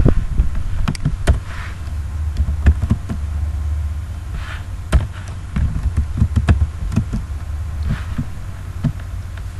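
Computer keyboard keys clicking in irregular taps as short words are typed, over a low rumble on the microphone.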